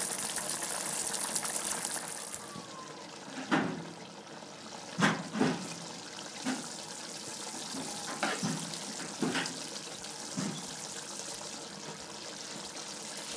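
Pot of mutton curry cooking on the heat: a loud sizzling hiss for the first two seconds or so, then a softer steady sizzle with a few separate pops or plops.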